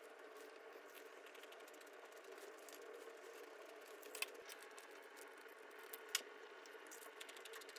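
Faint steady room hum with a few light, sharp clicks of metal chopsticks against a plastic plate, the clearest about four seconds in and again about six seconds in.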